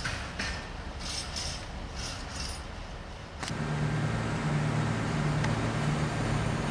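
Class 175 diesel multiple unit drawing into a platform, its underfloor diesel engines running with a steady low drone that starts suddenly about halfway through. Before that, only faint scattered outdoor noise.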